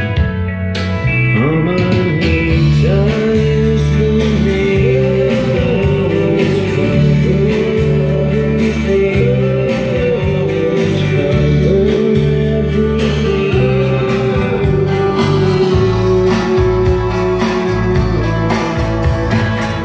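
Music played back from a cassette on a Pioneer CT-W616DR deck with its digital processing switched on: a singing voice over guitar accompaniment, the voice coming in about a second and a half in.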